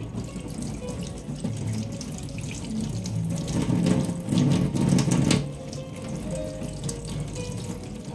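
Tap water running into a stainless steel sink and splashing over leafy plant stems and hands as they are rinsed, louder for a couple of seconds in the middle. Soft background music underneath.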